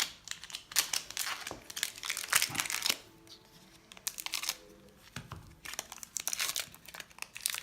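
Foil Magic: The Gathering booster pack wrapper crinkling and tearing as the pack is opened, in two spells of rapid crackling separated by a quieter pause.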